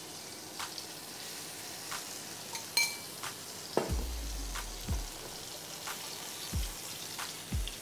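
Herbed cheese melting and sizzling gently in hot oil in a nonstick frying pan, with scattered light clicks. A few short low thumps come in the second half as the pan is handled.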